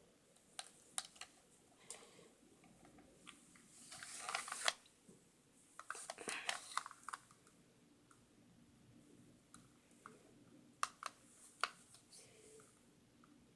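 Scattered light clicks, with two short rustling noises: one about four seconds in and one around six to seven seconds.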